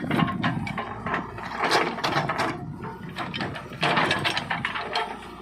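JCB 3DX backhoe loader at work: irregular clanks, crunches and scraping from the bucket and arm moving through the earth, over the engine's steady running.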